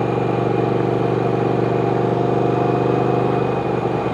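Triumph Speed Twin's parallel-twin engine running steadily at a constant speed.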